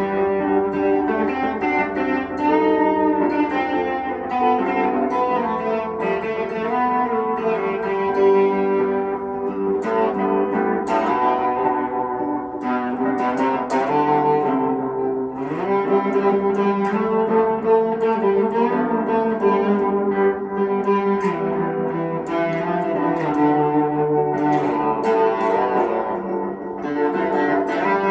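Box-bodied electric guitar played through effects: a picked melody of long, ringing notes, with a slide up in pitch about halfway through.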